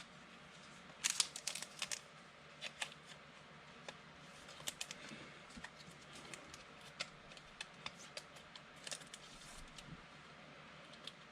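Football trading cards being handled: scattered light clicks and snaps of card stock as cards are flicked through and set down, with a quick flurry of them about a second in.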